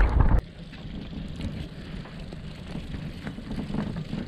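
Wind rushing over the microphone on a moving chairlift: loud for the first moment, then dropping suddenly to a steady low rush with a few faint ticks.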